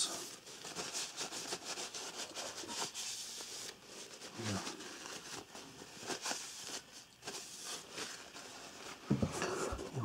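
Paper tissue rubbing and crinkling along the steel blade of a Lionsteel M7 fixed-blade knife in quick, scratchy strokes, wiping off a film of Ballistol oil.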